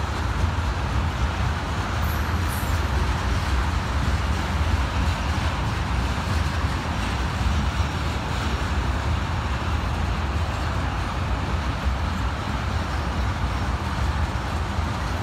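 Freight train of tank cars rolling steadily past, a continuous rumble and rush of steel wheels on rail.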